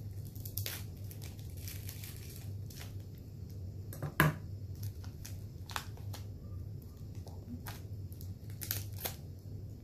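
Wafer package being cut and torn open by hand: the wrapper crinkles and tears in scattered crackles, with one sharp click about four seconds in.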